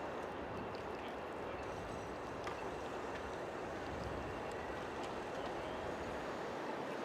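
Steady city street noise: a constant rumble and hiss of distant traffic, with a few faint ticks.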